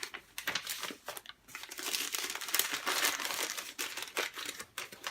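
Crinkling of a book's wrapping as it is handled and unwrapped: a few light rustles, then steady crackly rustling from about a second and a half in.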